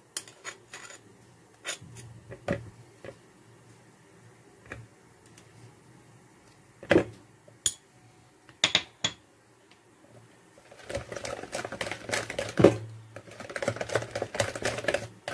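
Whisk beating cake batter in a plastic jug: a few scattered taps and clinks, then from about eleven seconds in fast, continuous rattling clicks as the whisk strikes the jug's sides.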